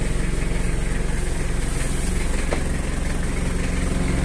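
Mitsubishi L300 pickup engine idling steadily.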